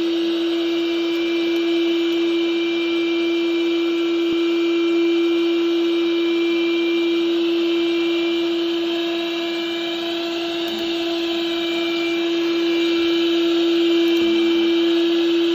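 Window-cleaning robot's suction fan motor running steadily, a strong even hum with a hiss over it, dipping slightly in level about ten seconds in.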